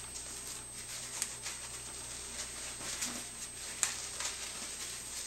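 Cast padding being wrapped by hand around a lower leg: faint rustling of the padding with a few soft ticks, the clearest about a second in and near four seconds.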